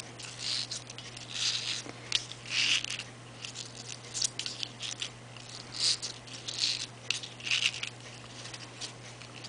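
Sheer ribbon and cardstock rustling in short, irregular bursts as hands tie a ribbon bow on a card, with a few small clicks and taps.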